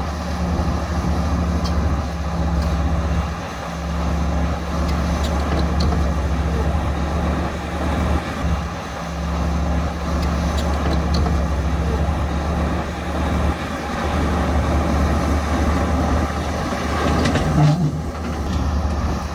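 Heavy diesel earth-moving machinery, bulldozers and dump trucks, running with a low steady drone, with a few faint clicks and a brief louder note near the end.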